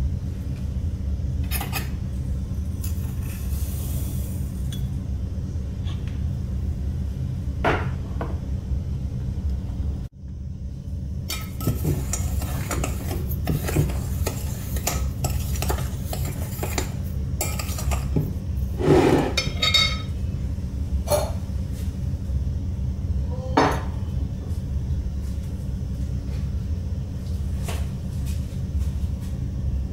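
A metal spoon clinking and scraping against a glass bowl as dry pancake ingredients are stirred together, in irregular taps that begin about a third of the way in and are loudest a little past halfway. A steady low hum runs underneath.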